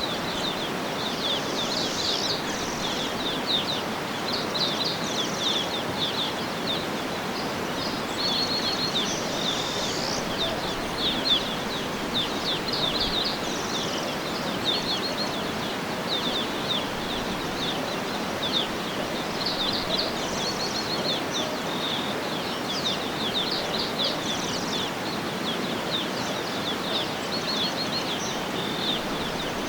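Birds chirping and trilling in quick, repeated high notes over a steady background rush.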